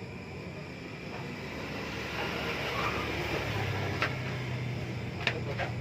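Low, steady engine hum that comes in and grows louder partway through, over outdoor background noise, with a few sharp clicks near the end.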